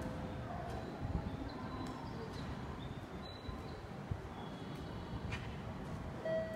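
Station concourse background: a steady low hum and murmur with a few faint clicks and short thin beeps. A chime tone starts near the end.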